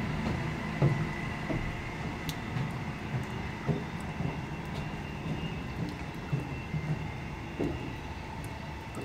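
Class 158 diesel multiple unit pulling away along the line, its rumble slowly fading with distance, with a few irregular low thumps.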